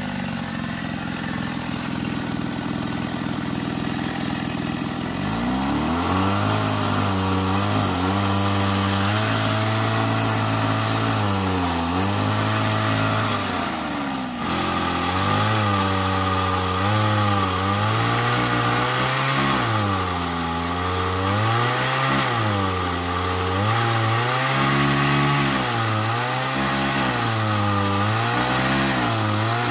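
Hydraulic pump drive of a homemade 1/8-scale Cat 390F RC excavator running. About five seconds in, a humming drone sets in whose pitch dips and recovers again and again as the boom, arm and bucket are worked and the hydraulics take load.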